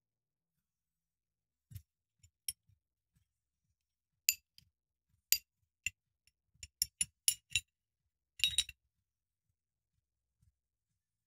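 High-speed steel blanks clinking against each other and the lathe's compound slide as they are lifted off and set down, about a dozen separate sharp metallic clinks, with a quick rattle of several together near the end.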